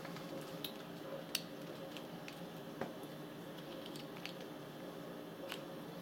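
Scattered small clicks of a metal contact piece and plastic switch-housing parts being handled and slid into place by hand, about half a dozen in all, the clearest about a second and a half in and again near the end. A faint steady hum lies underneath.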